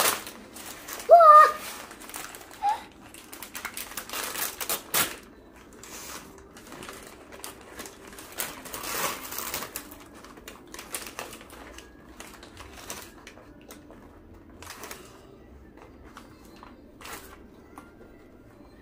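Brown paper takeaway bag rustling and crinkling in irregular crackles as it is opened and rummaged through by hand. A brief child's vocal sound about a second in is the loudest moment.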